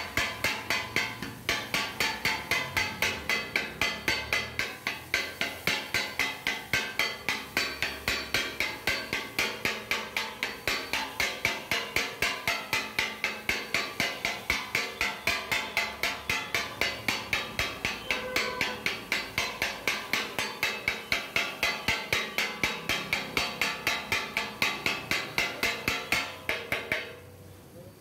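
Kothu parotta being chopped on a flat iron griddle: a steel chopping tool strikes the hot plate in a fast, steady metallic clatter of about four to five strikes a second. The strikes stop shortly before the end.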